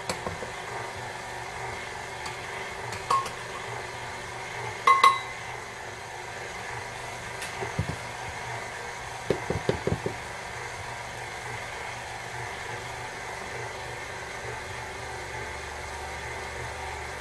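KitchenAid Artisan stand mixer running steadily, its dough hook kneading bread dough in the stainless steel bowl. A metal measuring cup clinks twice against the bowl a few seconds in, and a short cluster of dull knocks comes about eight to ten seconds in.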